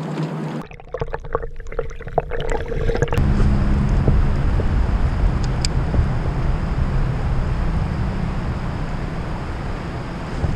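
Steady rushing and gurgling of river water around a kayak running through a shallow riffle, with a strong low rumble. A few light clicks and taps come about a second in, before the water noise rises about three seconds in.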